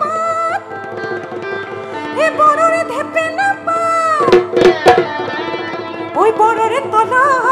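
Live Assamese Bihu music from a stage band: a wavering melody line over hand-drum beats, with a cluster of hard drum strokes about halfway through.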